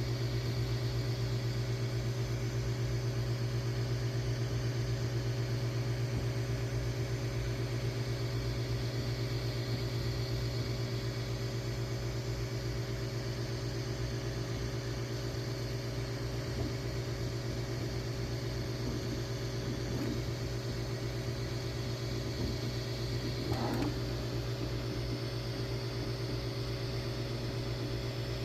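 A steady low mechanical hum, unchanging, with a brief added noise a few seconds before the end.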